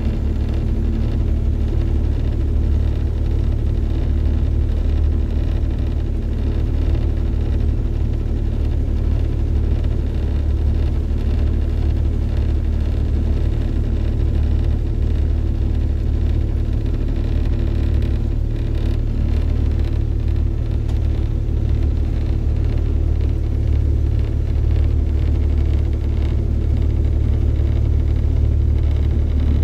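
Outboard motor of a small river launch running steadily at cruising speed, a loud low drone with steady overtones, over the rush of water in the wake.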